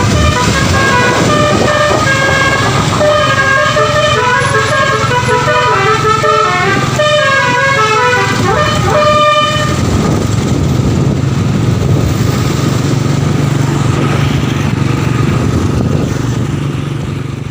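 Bus "telolet" multi-tone musical horn playing a quick stepping melody of changing notes for about the first nine seconds, over the bus's engine running. After that only the engine is heard running steadily.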